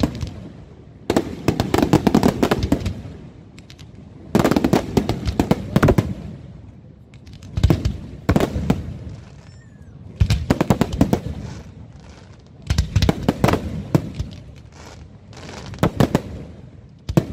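Aerial fireworks display: about six volleys of rapid sharp bangs and crackles, each lasting a second or two, coming every three seconds or so.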